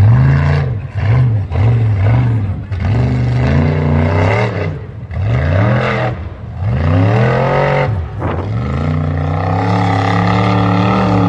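Off-road buggy's engine revving hard in quick bursts, the pitch rising and falling about eight times as the driver works the throttle up a steep dirt hill climb. Near the end it holds at high revs.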